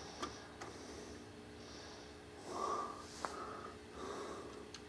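A person breathing audibly through the nose in soft, hissy puffs, the strongest about two and a half seconds in, with a few faint clicks from gear being handled.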